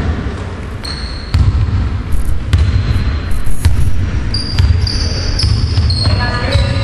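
Basketball being dribbled on a hardwood gym floor, a run of dull bounces, with short high squeaks of sneakers on the court over it, in a large echoing sports hall.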